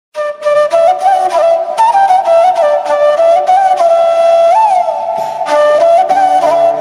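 Background music: a solo flute playing an ornamented melody with slides between notes.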